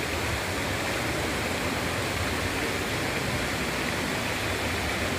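Indoor fountain's water jets splashing steadily into its pool, an even rushing hiss.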